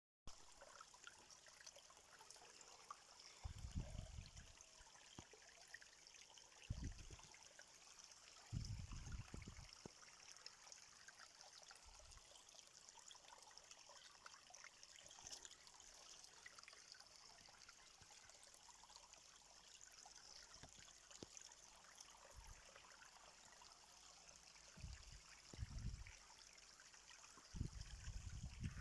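Faint, steady trickle of a small stream. Brief low rumbles come and go several times, the last near the end.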